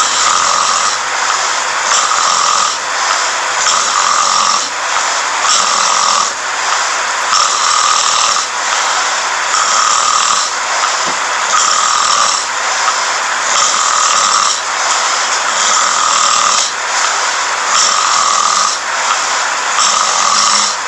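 A person snoring loudly while asleep, in a quick, regular rhythm of about one snore every two seconds.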